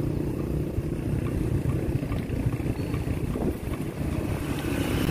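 Wind rumbling on the microphone and road noise from a bicycle being ridden along a city street, with motor traffic.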